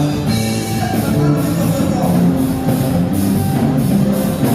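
Live gospel praise band playing an upbeat song: drum kit with a steady cymbal beat over bass and other instruments.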